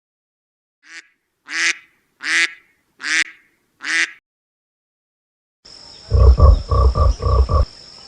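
A duck quacking five times, evenly spaced. After a short silence, six quick low calls sound over a steady high insect buzz.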